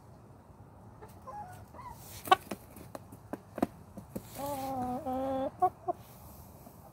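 Backyard hens clucking: a few short, sharp clucks, then about four and a half seconds in one long drawn-out call in two parts, followed by two quick clucks.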